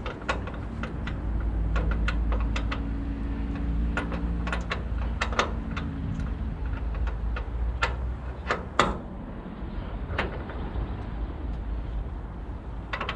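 Scattered sharp metallic clicks and knocks of tools and parts being worked under a car while a transmission is jacked into line with the engine, over a steady low rumble of wind on the microphone. The loudest knock comes a little before the middle.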